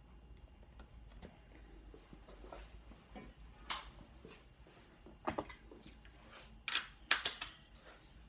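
Thin MDF box panels being handled and set into a jig: light scrapes and a few brief sharp knocks, the loudest a quick cluster of knocks about seven seconds in.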